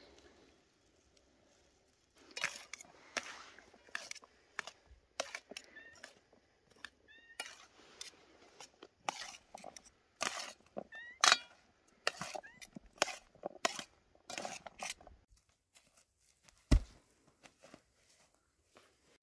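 Metal tongs and a knife tossing a chopped salad in a steel tray: irregular clinks and scrapes of metal on metal. They stop near the end, followed by a single low thump.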